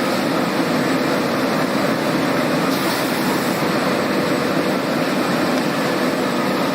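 Steady machinery noise of a refrigerator door gasket production line running, an even rushing hum with a faint steady tone.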